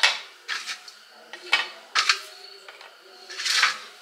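Crisp fried papri wafers being set one by one onto a steel plate: a series of light clatters and crackles, with a longer scrape about three and a half seconds in.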